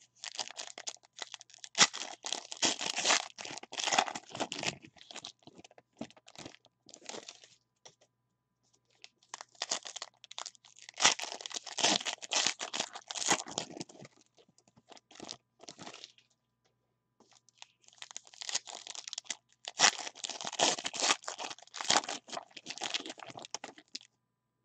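Foil wrappers of 2019 Panini Certified football card packs being torn open and crinkled by hand, in three long bouts of tearing and crumpling with short pauses between.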